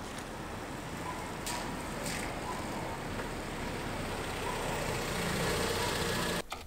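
A Honda Civic coupe driving slowly toward the camera at parking-lot speed. Its engine and tyre noise grow steadily louder as it comes close, then cut off abruptly near the end.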